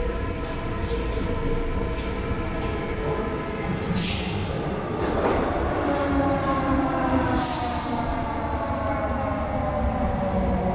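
Paris Métro line 12 MF67 train running, its motor whine shifting in pitch and slowly falling through the second half over a low rumble. Two short hisses come about four and seven and a half seconds in.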